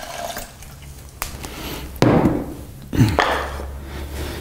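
Glass water pitcher set down on the countertop with a thunk, then knocks from the blender's lid being handled: a few sharp knocks, about two and three seconds in.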